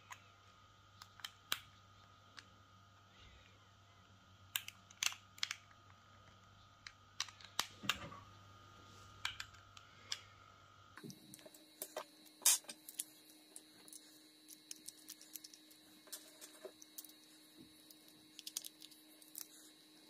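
Scattered clicks and taps from handling a hair clipper while a cutting blade is fitted onto it; the clipper's motor is not running.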